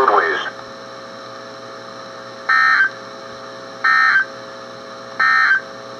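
Three short Emergency Alert System end-of-message data bursts (the SAME "NNNN" code), each about a third of a second and about a second and a half apart, over a steady radio hum. They signal the end of the broadcast weather warning.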